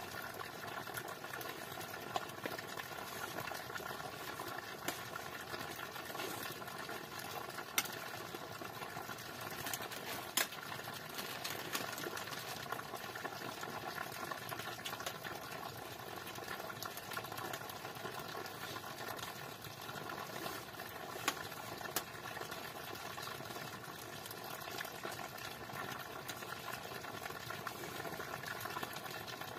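Steady bubbling hiss of a pot simmering on an open wood fire, with a few sharp clicks.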